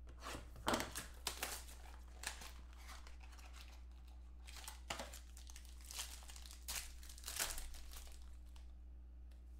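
Clear plastic wrapping on a trading-card box crinkling and tearing as hands unwrap it, in a string of short, irregular crackles.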